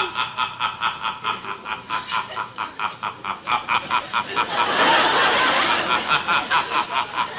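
A man's drawn-out villainous cackle, a rhythmic 'heh-heh-heh' of about five pulses a second that swells louder for a moment around the middle.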